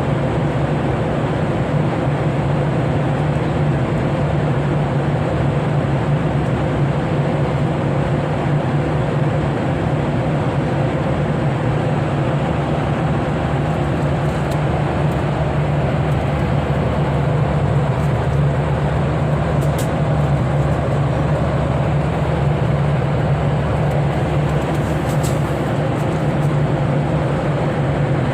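Steady airliner cabin noise in flight: the even rush and low hum of the engines and airflow, with a few faint clicks in the second half.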